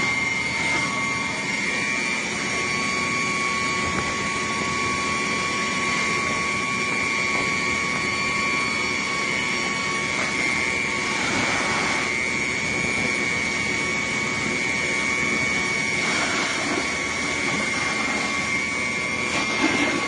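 Fire engine pump running at steady high revs: a constant drone with a high-pitched whine over a wash of noise. A second, lower whine drops out about halfway through.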